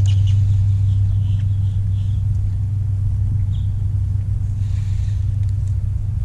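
Steady low hum of the boat's electric trolling motor running at slow speed.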